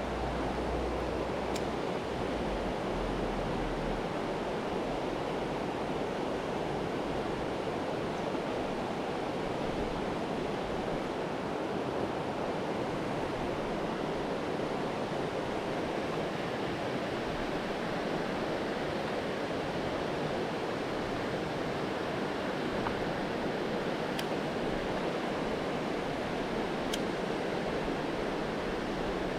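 Steady rush of river water flowing over rocks, with a few faint ticks.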